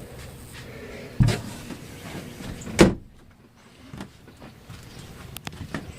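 Two knocks about a second and a half apart, the second louder and sharper, followed by a few faint clicks.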